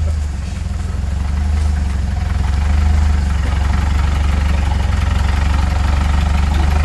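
Lifted Jeep's engine running steadily at low revs as it rock-crawls up a ledge.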